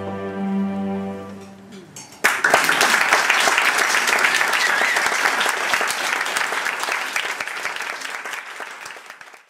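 A held final chord on an electric keyboard fades out, then about two seconds in an audience starts applauding, a dense clapping that tapers a little and is cut off abruptly at the end.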